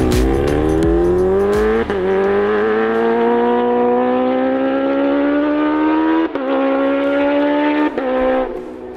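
Kawasaki H2R's supercharged inline-four accelerating hard through the gears with a quickshifter: the engine note climbs, then drops sharply at an upshift about two seconds in and at two more near the end, each shift with a sharp crack. The note then eases off and falls away.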